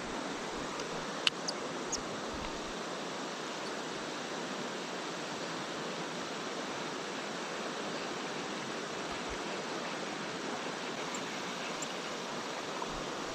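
Steady rush of a shallow river flowing over its rocky bed, with a sharp click about a second in.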